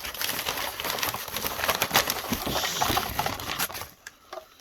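Packing paper crinkling and rustling as it is unwrapped from a vacuum cleaner's floor brush, dying away about four seconds in.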